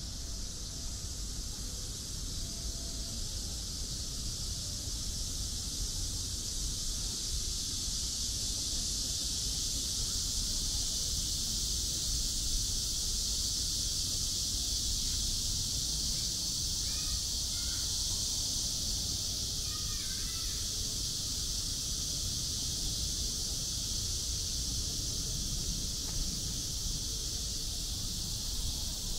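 Steady high-pitched drone of cicadas in the trees, with a low rumble of wind on the microphone and a couple of short bird calls a little past halfway.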